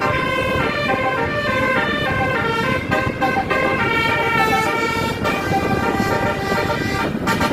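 A tour bus's 'basuri' telolet musical horn playing a melody of several tones at once, held notes stepping up and down in pitch every fraction of a second, over a steady low rumble; the tune breaks briefly near the end.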